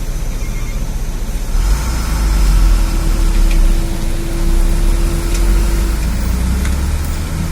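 Logging truck engine running under load, a heavy low rumble that grows louder about one and a half seconds in, with a steady whine over it, and eases off near the end.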